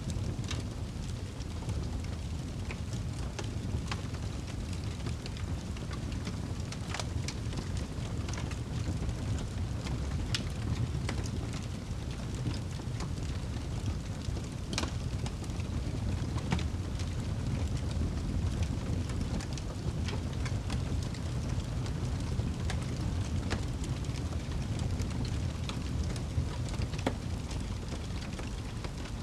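Wood fire crackling in a fireplace: a steady low rumble of flames with irregular sharp pops and snaps.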